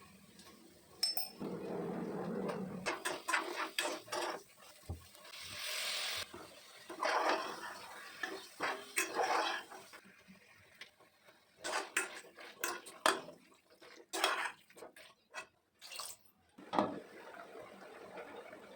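Kitchen utensils knocking and scraping against pots and dishes: a long, irregular run of sharp clinks and clatters, with a few brief stretches of rushing noise between them.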